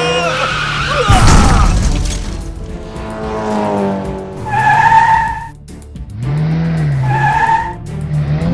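Cartoon race-car sound effects: a loud crash about a second in, then tyre squeals twice as the car skids out of control, over background music.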